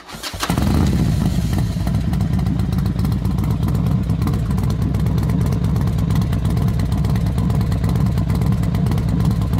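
A loud, steady, engine-like low rumble that comes in about half a second in after a brief clatter and cuts off abruptly at the end.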